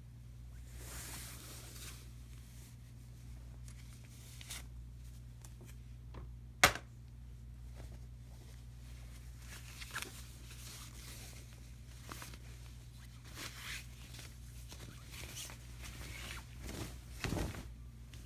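A shower curtain and its plastic hanger being handled: fabric and plastic rustling and scraping, with one sharp knock about a third of the way in and a burst of louder handling near the end. A steady low hum runs underneath.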